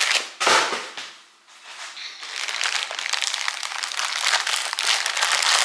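Plastic poly mailer bag crinkling and rustling as it is handled and pulled open, a short rustle near the start, then steady dense crinkling from about two seconds in.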